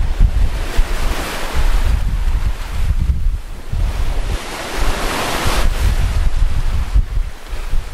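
Wind buffeting the microphone over the rush of rough sea along a sailing yacht's hull. Two louder hissing surges of water, about a second in and again about five seconds in, are waves breaking and washing past the bow.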